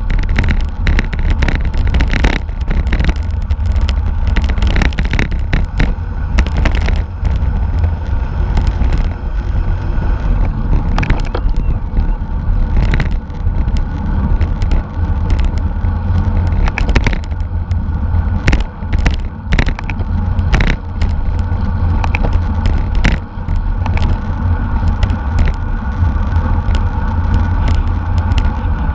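Wind buffeting the microphone of a camera riding along in a bicycle race, a heavy steady rumble, with the bike's road and drivetrain noise and frequent clicks and rattles over it.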